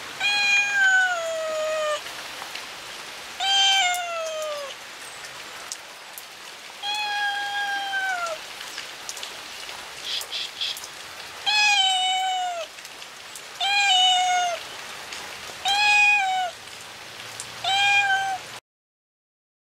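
Domestic cat meowing seven times, each call about a second long and falling in pitch, over a steady patter of rain.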